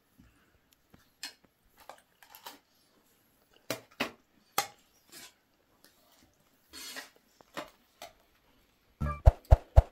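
Spoons and forks clinking and scraping on china plates during a meal, in scattered single clicks, with a quick run of heavier knocks near the end.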